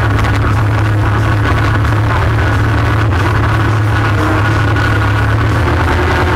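ATV engine running at a steady speed while riding, a loud, even low drone that holds steady.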